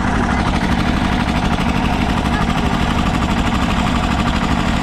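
A loud engine idling steadily, with a rapid, even throb.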